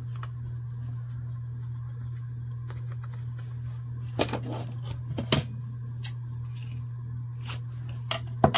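Paper being handled and folded, then scissors clicking and snipping paper several times in the second half, the sharpest snip near the end. A steady low hum underlies it.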